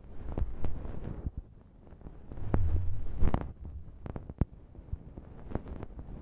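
A bonten (the fluffy down puff on an ear pick) rubbed and brushed over a microphone. It gives a muffled low rumble with soft scratchy rustles and scattered clicks, and a louder stretch of rubbing about halfway through.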